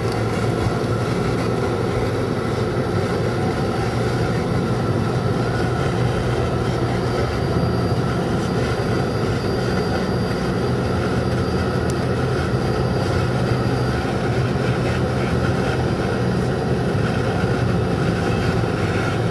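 Steady engine and tyre noise of a car being driven, heard from inside the cabin, the engine note shifting slightly.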